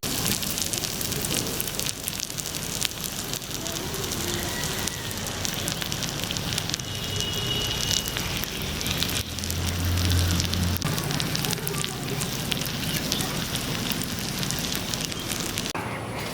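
Open cooking fire crackling steadily: a dense run of small pops and snaps.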